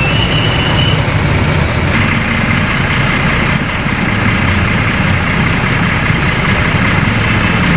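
A motor vehicle's engine idling close by, a steady low rumble under a dense hiss.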